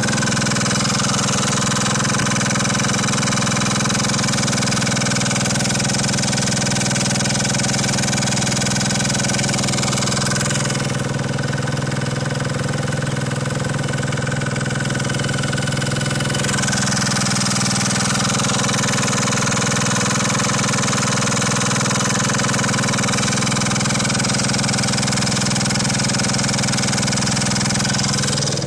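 Tomos Nitro scooter's 80 cc GY6-type four-stroke engine idling steadily with a loud knocking noise coming from right behind the cooling fan. The owner has already adjusted the valves and suspects the crankshaft.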